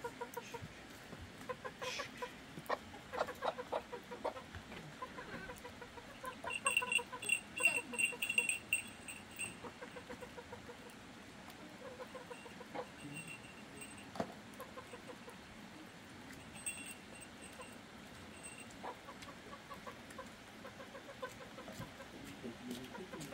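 Hens clucking with short repeated calls, and a run of high-pitched chirping from about seven to nine and a half seconds in.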